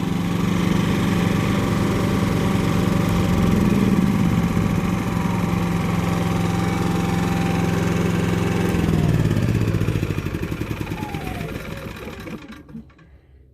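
Yamaha EF2000iS and EF2400iS inverter generators running steadily, then being switched off: the engine note falls, pulses and dies away to a stop in the last few seconds.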